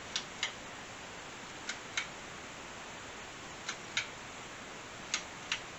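A lamp's pull-chain switch being worked four times, each operation giving a pair of sharp clicks about a third of a second apart, as the lamp is switched on and off to test the new wiring. A steady hiss lies under the clicks.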